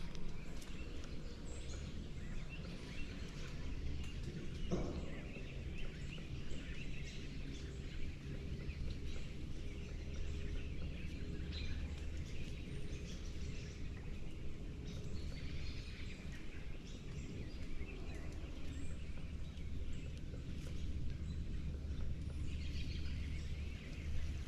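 Creekside outdoor ambience: birds chirping now and then over a steady low rumble.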